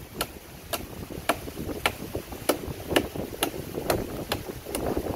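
Bolo machete chopping into a coconut palm trunk, cutting a foothold notch for climbing. Sharp blade strokes land at a steady pace of about two a second, roughly ten in all.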